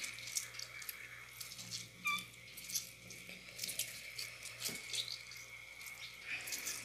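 Faint splashing and dripping of water as a hand squeezes a lime and moves raw chicken pieces around in a basin of water, with irregular small sloshes.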